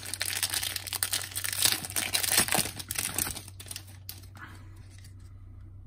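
Foil wrapper of a Donruss trading card pack being torn open and crinkled by hand. The crinkling lasts about three and a half seconds, then dies away.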